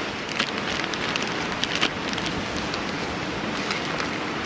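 Gyoza frying in a hot sandwich maker pan: a steady sizzling hiss of hot oil, with a few sharp crackles about half a second in and again near two seconds.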